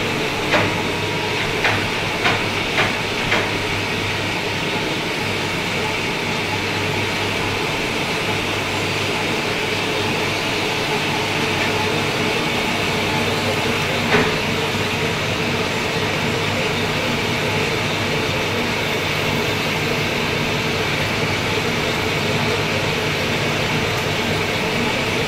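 Lathe running steadily with a constant hum and whine, with a few sharp clicks in the first few seconds and one more about fourteen seconds in.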